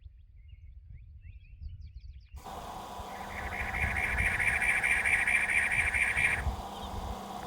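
Outdoor ambience: low wind rumble with faint, scattered bird chirps. After about two and a half seconds the sound changes abruptly, and a loud, steady, buzzy trill runs for about three seconds before stopping.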